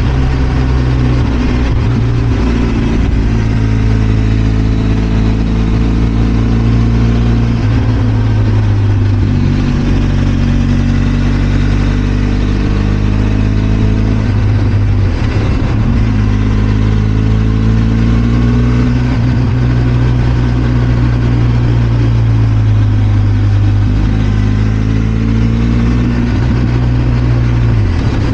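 Benelli TRK 502 X's parallel-twin engine running under way, its note rising and falling with the throttle and changing pitch several times, as at gear changes.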